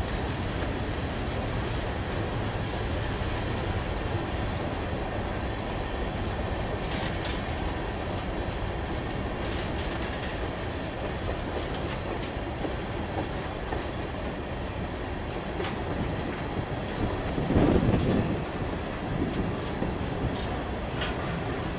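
Freight cars (covered hoppers, tank cars, bulkhead flatcars) rolling past at low speed: a steady rumble of wheels on rail with clicks as the wheels cross rail joints. The rumble swells louder briefly about three-quarters of the way through.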